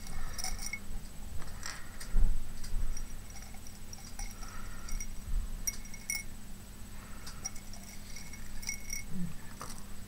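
Small craft embellishments clicking and clinking lightly as they are picked through and handled, in short scattered taps over a faint steady hum.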